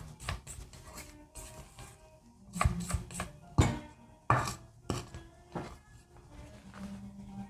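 Background music with a series of sharp knocks and clinks of kitchen utensils against dishes, loudest a little past the middle.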